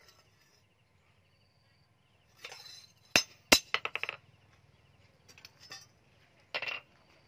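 Hammer striking a rusty steel billhook blade on an anvil: a few sudden metallic clinks, two of them sharp blows less than half a second apart about halfway through, and one more strike near the end.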